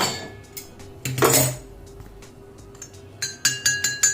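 Metal spoon and crockery clinking: a short clatter about a second in, then a quick run of bright, ringing clinks near the end, like a spoon tapping against a cup.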